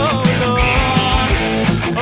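Rock band music: electric guitars, bass guitar and drums playing together, with a steady drum beat.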